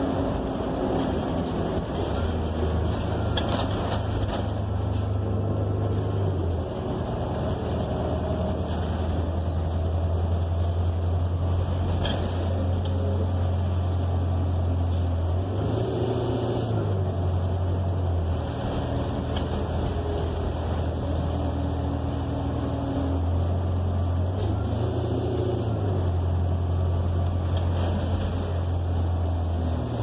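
Inside a moving New Flyer XN40 city bus: its Cummins Westport L9N natural-gas engine and Allison automatic transmission drone low under road rumble, the pitch stepping up and down several times as the bus speeds up and slows.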